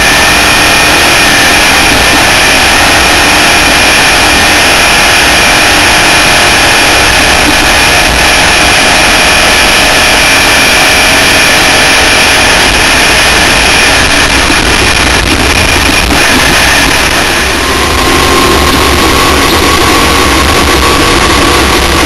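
Loud, steady wind and driving roar on the onboard camera of a Class 1 off-road race car at speed, which largely drowns out the engine. About three-quarters of the way through the roar dips briefly and a few steadier tones come through more clearly.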